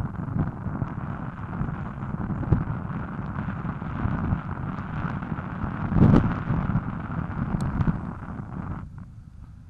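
Wind rushing and buffeting over a helmet-mounted action camera's microphone as a bicycle is ridden, a low gusty rumble with a strong surge about six seconds in. It dies down sharply near the end.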